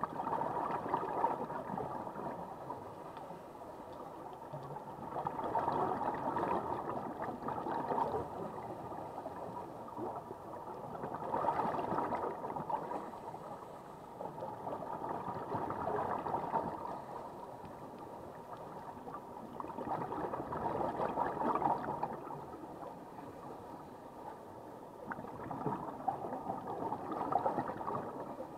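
Scuba regulator exhaust bubbles gurgling underwater with each exhalation, swelling and fading in a slow breathing rhythm about every five seconds, six times.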